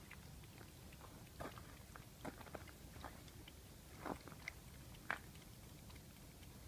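Domestic cat lapping water from a plastic basin: faint, irregular wet clicks of its tongue.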